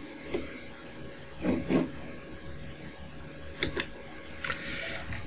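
A few soft clicks from the keys of a grandMA lighting console being pressed, a sharp pair of them over halfway through, followed by a short rustle, over a faint steady hum.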